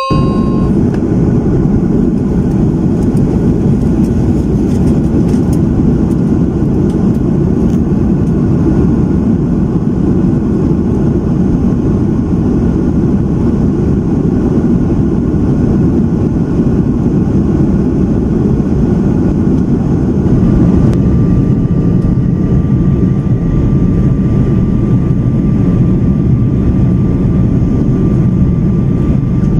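Jet airliner cabin noise from a window seat beside a turbofan engine in flight: a steady, dense rumble and rush. A steady whine joins about two-thirds of the way through.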